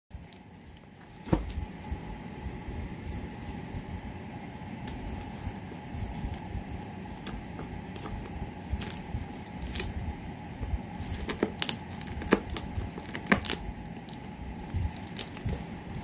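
Hands handling and crinkling a mailing envelope wrapped around a boxed parcel: scattered sharp crackles and rustles over a steady low hum.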